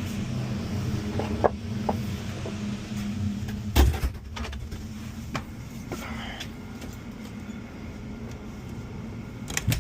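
A steady low hum with scattered clicks and knocks. A loud thump comes about four seconds in, after which the hum is quieter, and another sharp knock comes near the end.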